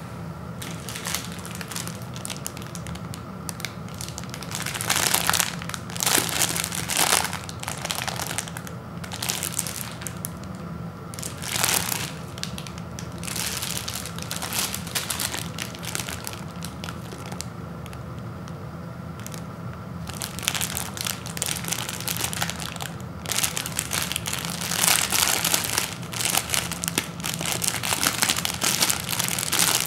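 Plastic film wrapper of a Maruchan ramen noodle packet crinkling as it is held, squeezed and turned over in the hands. It comes in irregular bouts, louder a few times and most of all near the end as fingers pick at the packet's sealed end.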